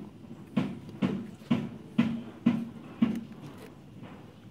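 Homemade lever cutter chopping through motorcycle-tire rubber in repeated short strokes, about two a second, as the edge of a sandal sole is trimmed; the strokes stop about three seconds in.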